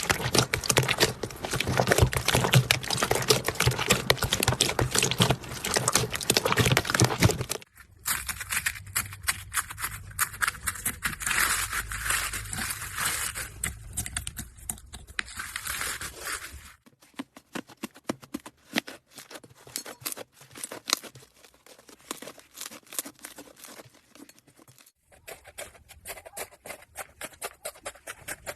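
Slime being squished and stretched: dense, sticky crackling and popping. The sound changes abruptly about eight seconds in, again near the middle, and once more near the end, quieter in the later stretches.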